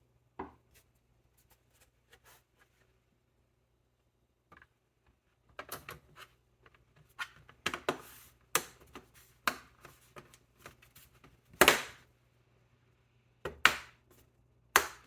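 Small laptop parts being handled: a series of sharp clicks and taps, one soon after the start, then a run of them in the second half, the loudest about two-thirds through.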